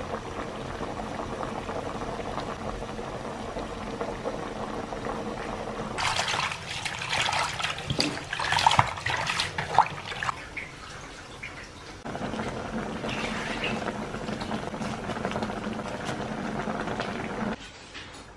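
Fish braising in liquid in a wok, a steady simmering bubble; about six seconds in, hands splash and rub leafy greens in a plastic basin of water for several seconds, after which a steady sound like the first returns until just before the end.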